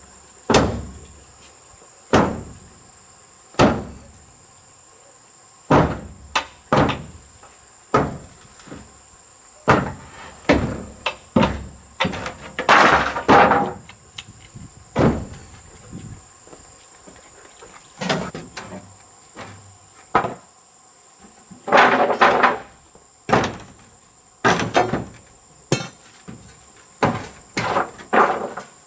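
Sharp knocks and impacts from hand building work, spaced a second or two apart and sometimes in quick runs, with a few longer, noisier strikes about halfway and two-thirds through. A steady, high-pitched insect drone runs underneath.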